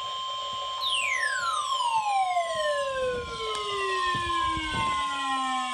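NOAA Weather Radio warning alarm tone: a steady single-pitch 1050 Hz tone held throughout. Over it, a siren-like tone slides steeply down in pitch over several seconds, starting about a second in, and starts again high near the end.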